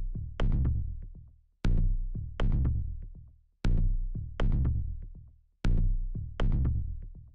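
Electronic background music: pairs of heavy bass-and-drum hits, the second about three quarters of a second after the first, repeating every two seconds and fading out between pairs.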